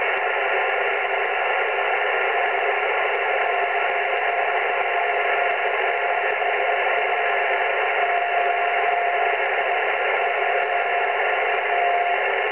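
Amateur radio transceiver receiving on the 15-metre band with no station transmitting: a steady hiss of band noise, cut off above and below by the receiver's narrow voice filter. A faint steady whistle runs through most of it.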